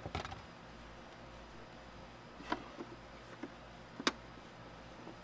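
Scattered clicks and light knocks of hands working on a car's rear-door taillight trim: a short cluster at the start, one about two and a half seconds in, and a sharper single click about four seconds in.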